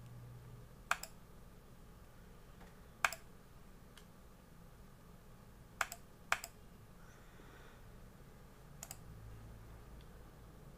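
A handful of sharp, separate clicks at irregular spacing, two of them close together near the middle: the clicks of computer controls being worked to scrub and replay video footage.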